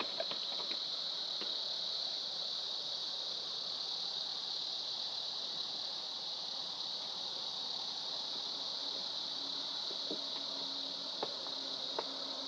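Steady, high-pitched chorus of insects. A faint low hum joins about nine seconds in, and there are a couple of sharp clicks near the end.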